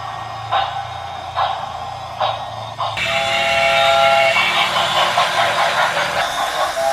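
Steam locomotive sound: slow, even chuffs about once a second. About three seconds in, a loud multi-tone steam whistle with hissing steam takes over abruptly.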